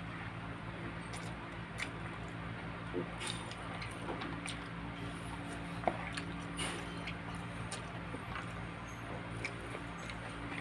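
Close-up eating sounds: chewing, with moist smacks and the squish of hands tearing apart roast chicken, as scattered short clicks at irregular times. A steady low hum runs underneath.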